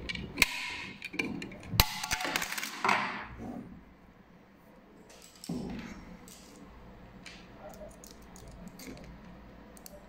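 Plastic top cover of a small sealed lead-acid battery being prised off: a run of hard plastic clicks and scrapes with one sharp crack about two seconds in, then fainter clicks of handling.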